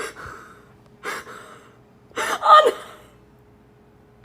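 Breathy intakes of breath, then a loud, short gasp about two seconds in.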